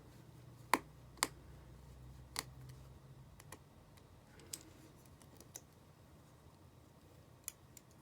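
Small sharp clicks and taps of tools and parts being handled while reassembling an iPhone 5, about six at irregular intervals, the two loudest in the first second and a half. A faint low hum runs under the first three seconds.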